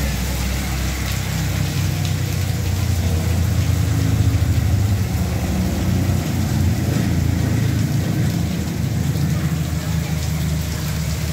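Heavy rain falling in a steady hiss, with strong gusting wind buffeting the microphone in a low, fluctuating rumble.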